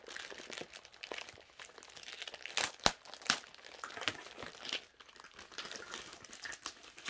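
Clear plastic wrapping crinkling and crackling as it is pulled off a rolled canvas, in irregular bursts with the sharpest crackle about three seconds in.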